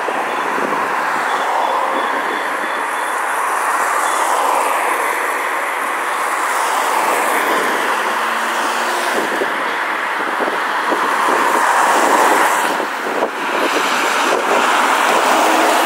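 Steady noise of heavy city traffic on a wide road, vehicles passing, the sound swelling and easing.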